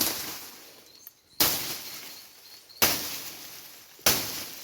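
A blade chopping into a prickly 'picker' tree: four sharp strokes about 1.3 seconds apart, each fading out over about a second.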